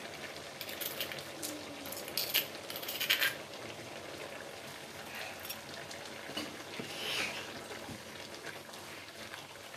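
Metal spoon scraping and clicking against a stone mortar as pounded garlic and black pepper are knocked out into a wok of simmering prawns, a run of short scrapes in the first few seconds over the quiet simmer of the curry. A wooden spoon stirs the pan near the end.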